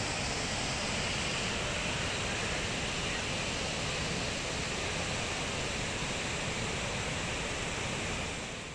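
Tall multi-tiered waterfall rushing with a steady, even roar, fading out near the end.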